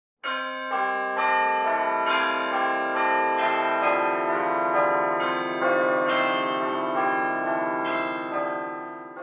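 A short tune of struck bell-like chimes: about a dozen notes, each ringing on and overlapping the next, fading off near the end.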